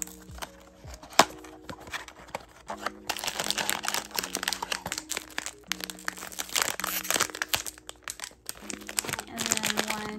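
Crinkling of a metallic foil blind-box bag being handled and pulled open. It starts about three seconds in, after a few sharp clicks and taps from the cardboard box being opened. Soft background music with held notes plays underneath.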